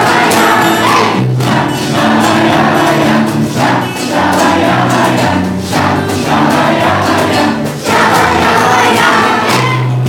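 A crowd of children and adults singing a lively song together to acoustic guitar accompaniment, in repeated phrases with short breaths between them.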